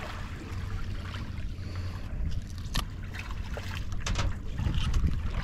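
Wind rumbling on the microphone over small waves lapping in the shallows, with a few sharp clicks about halfway through and again later.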